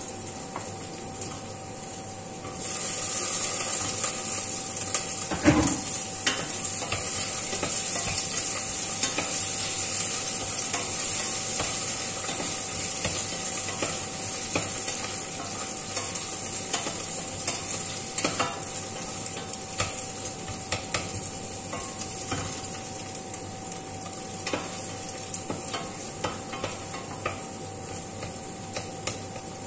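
Onion and garlic sizzling in a stainless steel pot as they are stirred, the utensil scraping and tapping against the pot. The sizzling gets louder about two and a half seconds in, and there is one sharp knock on the pot about five seconds in, over a steady faint hum.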